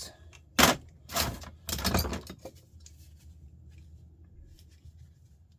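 Metal scrap parts from a stripped starter motor being tossed and handled: a sharp clank about half a second in, then two rougher scraping clatters around one and two seconds in, then only a low hum.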